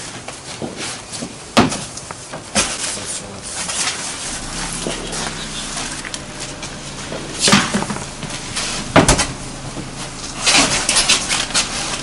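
New car tyres being handled in a van's cargo area: irregular thumps and knocks as they are moved and set down on the metal floor, several sharp knocks a few seconds apart.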